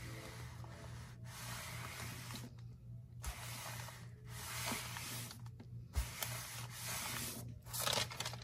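Small craft iron sliding back and forth over a paper sheet on ribbon: a papery rubbing swish in strokes of about a second each with short breaks between them. Near the end the paper rustles as it is lifted off.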